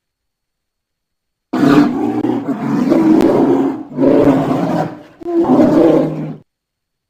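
Polar bear roaring: three harsh, low roars one after another, the first the longest, starting about a second and a half in.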